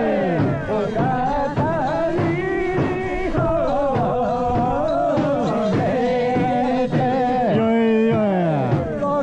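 Music with singing: long held, wavering notes that repeatedly slide down in pitch.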